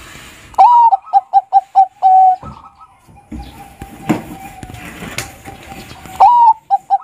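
Zebra dove (perkutut, Bangkok type) cooing. A rising opening note is followed by a quick run of short staccato coos and a longer closing coo. A second phrase of the same kind begins near the end.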